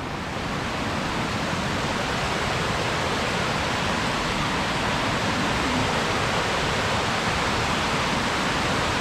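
Waterfall: steady rushing water, growing slightly louder over the first few seconds and then holding level.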